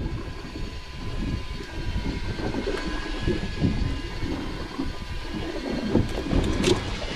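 Uneven low rumble of wind and boat noise on the microphone, with a faint steady high whine above it.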